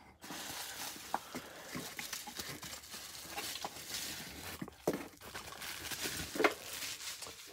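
Plastic bubble wrap crinkling and rustling as it is handled and pulled around a hard plastic case, with many small crackles throughout.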